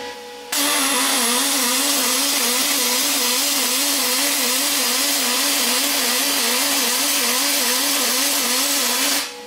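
MIG welding arc on aluminium plate, with argon shielding, from a Grovers Energy MIG 200 dual-pulse welder: a steady loud hiss that starts about half a second in and stops just before the end. A tone within it wavers up and down about twice a second.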